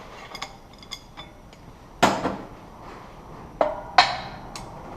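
Steel dimple-die parts and a steel bracket knocking together: light metal clicks, then a sharp ringing clank about two seconds in and two more clanks near the end.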